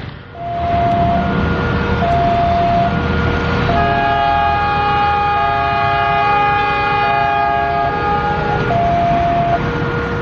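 A level-crossing warning alarm alternates between two tones, about a beat a second, over the low rumble of an approaching train. About four seconds in, a diesel locomotive's air horn sounds one long chord of about five seconds, and then the alternating alarm carries on.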